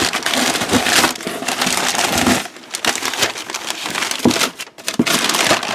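Crumpled packing paper rustling and crinkling as it is handled and pulled out of a cardboard box, with a short lull about halfway through.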